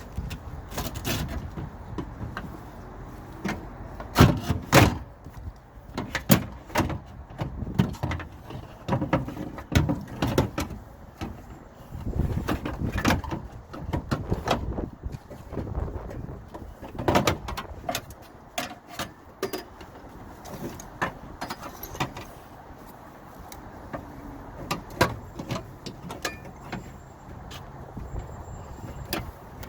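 Irregular metal knocks, clicks and rattles of a car door's window regulator rail being worked loose and pulled out through the door shell and its rubber seal.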